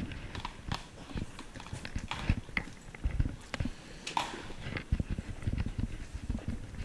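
Irregular footsteps on a hard tiled floor, with scattered knocks and rustling close to the microphone.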